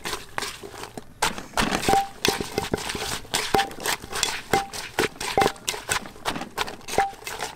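Wooden pestle and spoon knocking in a clay mortar as the papaya salad is pounded and turned: irregular knocks, about two or three a second, many with a short ring from the clay.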